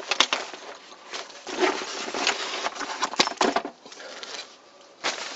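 Zipper on an IPRee 30-litre backpack's front pocket being pulled open in several rasping strokes, with fabric rustling and sharp clicks of the zipper pulls as the flap is laid open. The noise dies down before a short burst of handling near the end.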